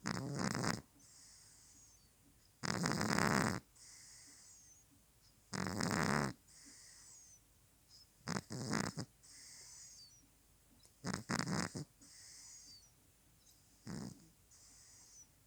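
A toothless house cat snoring in her sleep: six loud snores about three seconds apart, with softer, hissy breaths in between.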